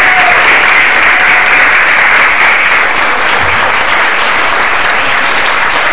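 Audience applauding steadily after a dance performance ends.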